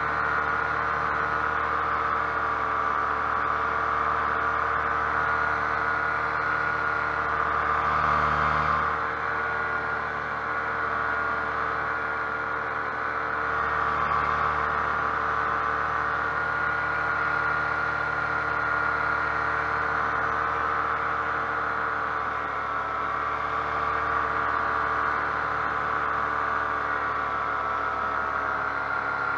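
Paramotor engine and propeller running steadily at cruise power in flight, its pitch dipping slightly a few seconds in and again after about twenty seconds.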